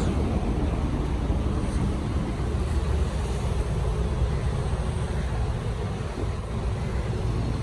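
Passing road traffic on a city street: a steady rumble of cars and tyres, with no single engine standing out.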